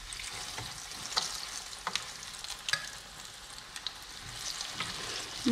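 Breaded pork chop frying in hot olive oil in a pan: a steady sizzle with scattered sharp crackles and pops.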